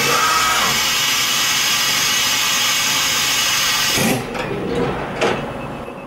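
Fadal CNC vertical machining center milling a metal plate under coolant spray: a loud, steady hiss of cutting and spray with a high whine. It stops abruptly about four seconds in, leaving quieter machine noise with a few knocks.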